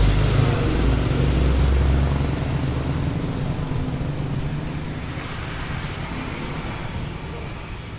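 Fuel-injected engine running, loud with a low hum for the first three seconds, then dropping back to a quieter steady run.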